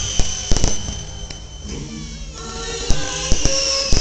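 Aerial fireworks going off in a string of sharp bangs and crackles, bunched in the first second and again from about three seconds in, over music with singing.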